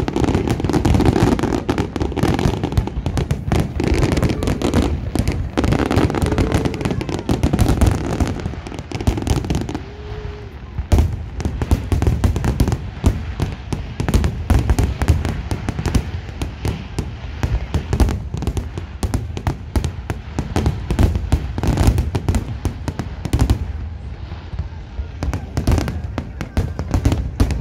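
Aerial fireworks display: a dense, continuous barrage of bangs and crackling from shells bursting overhead.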